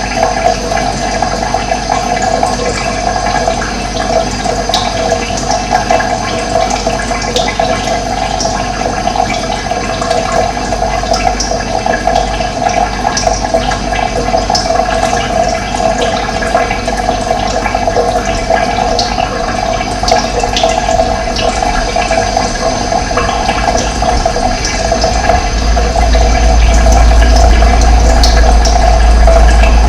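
Steady rushing of running water, with scattered short high bird chirps over it. A low rumble swells under the water near the end.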